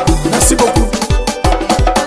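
Wê (Krahn) dance music from Côte d'Ivoire, playing as an instrumental passage: a fast, steady bass-drum beat with percussion under sustained melodic instrument lines.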